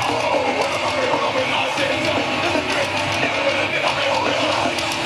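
Loud live heavy-metal band playing, with distorted guitars and singing carried over a festival sound system.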